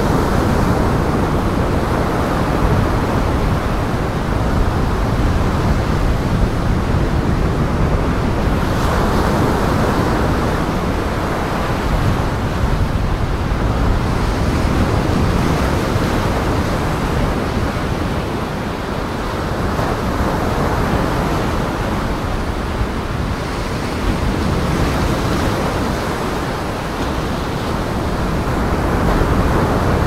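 Waves breaking and washing in, a loud steady rush of water with wind noise, swelling and easing every few seconds.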